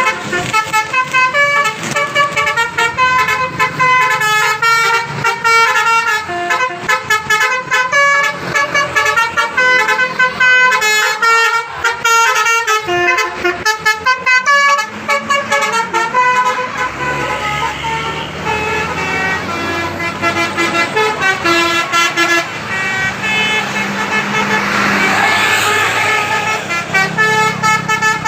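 A bus's Basuri telolet horn, a multi-tone musical air horn, playing quick tunes of short stepping notes over and over. From about halfway a heavy bus engine comes in underneath, growing louder as the bus passes close.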